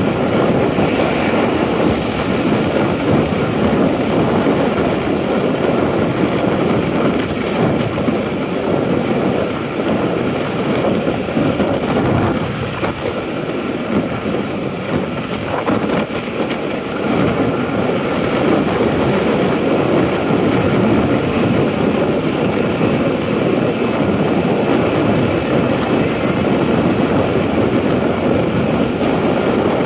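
Riding a motorbike along a paved road: steady rush of wind on the microphone mixed with engine and tyre noise, easing a little for a few seconds midway.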